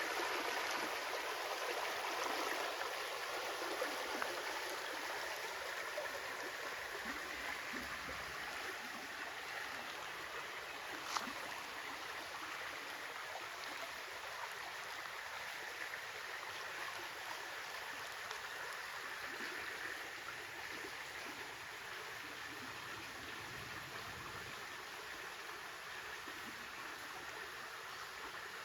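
Stream water flowing steadily, an even rushing hiss that fades a little over time, with one brief click about eleven seconds in.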